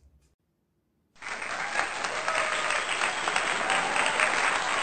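After about a second of silence, a crowd starts applauding, a dense, steady clapping that carries on.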